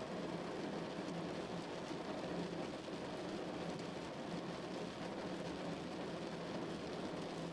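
Heavy rain drumming steadily on a car, a dense even patter with fine drop ticks and no let-up.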